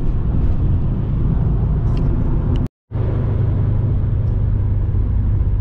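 Road and engine noise inside a Subaru Legacy's cabin while cruising on the highway, a steady low drone. It drops out to silence briefly about halfway through at an edit, and the low drone comes back steadier and stronger.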